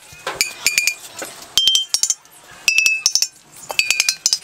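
Fired red earthenware water pots tapped in turn with a small hand-held tool, each pot giving a quick run of taps that ring with a clear, high, glassy tone. The four runs of taps come about a second apart, in the way fired pots are tapped to check that they ring true and are uncracked.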